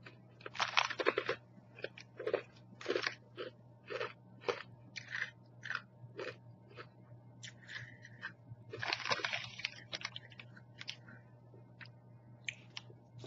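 A person biting and chewing crunchy bacon-flavoured rye-bread croutons: a loud crunching bite about a second in and another around nine seconds, with a crunching chew about every half second in between.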